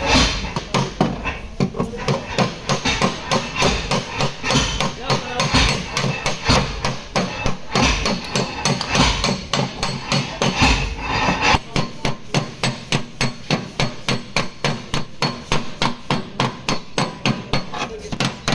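Body hammer tapping out a dented steel rear quarter panel on a Toyota Aqua: a fast, steady run of sharp metal strikes, several a second, with no let-up.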